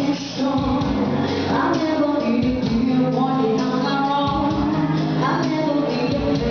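Live band playing with a singer: a sustained bass line and regular kick-drum hits under the vocals.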